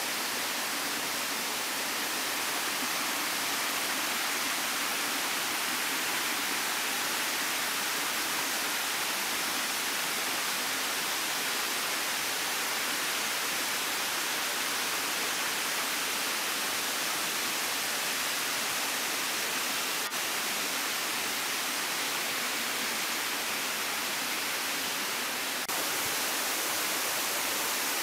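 Steady rush of water from a small waterfall and the stream running over rock below it, an even hiss that holds throughout.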